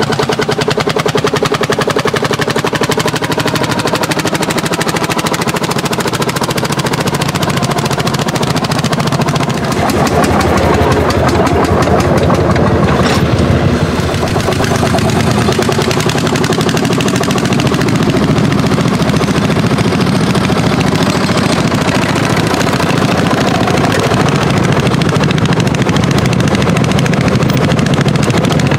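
Old tractor engines pulling plows under load. First a Landini hot-bulb tractor's single-cylinder two-stroke engine firing in rapid, sharp, regular exhaust beats; about ten seconds in the sound turns louder and changes to another tractor's engine.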